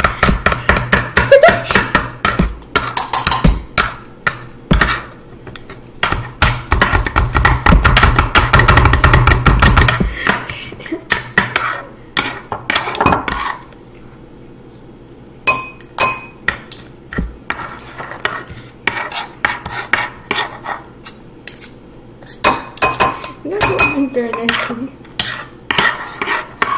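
Metal spoons rapidly chopping and scraping ice cream on a wooden cutting board: a dense run of taps and clicks for the first ten seconds or so, then sparser, scattered taps.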